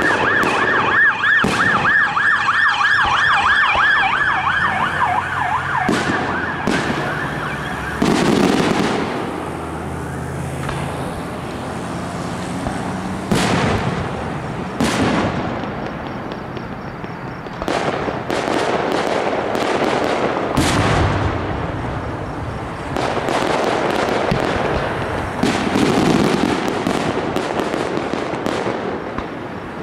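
An emergency-vehicle siren yelps in a fast, repeating rise-and-fall for about the first eight seconds, then stops. From then on, aerial firework shells burst one after another, each a sharp bang followed by crackling.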